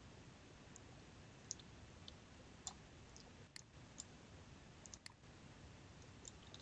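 Faint, scattered computer mouse clicks, about one or two a second, as the button is pressed and released for each stroke of a signature drawn on screen, over near-silent room tone.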